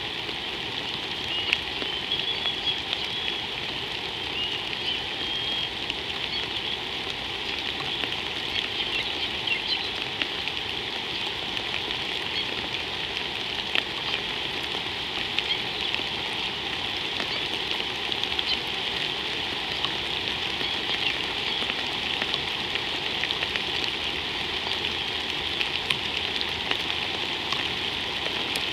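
Steady rain falling on water and ground, a continuous hiss with many small drop ticks scattered through it.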